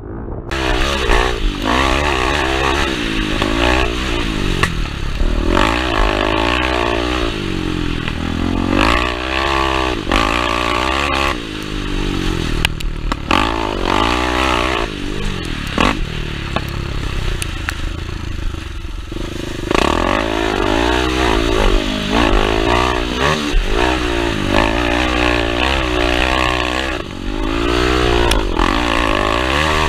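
KTM 525 XC dirt bike's four-stroke single-cylinder engine, ridden hard on a motocross track: the revs climb and drop again every few seconds as the rider opens and shuts the throttle through the turns and straights.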